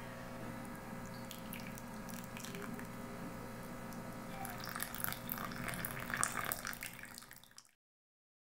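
Hot water poured from a kettle into a ceramic mug over a coffee bag, splashing and filling for about three seconds before cutting off abruptly. Before the pour there is a steady low hum.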